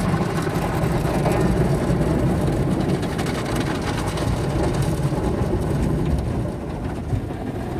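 Automatic car wash heard from inside the car: water and soap spraying and drumming on the roof and windows, a steady rushing noise like rain, easing off a little near the end.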